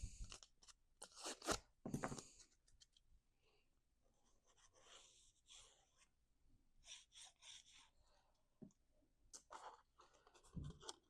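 Faint rustling, rubbing and light tapping of cardstock being handled and pressed into place as a paper panel is glued onto a box, in scattered short bursts.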